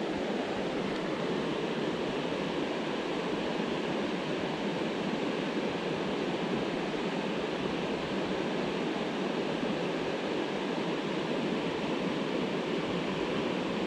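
Steady rush of flowing river water, an even noise with no other sound standing out.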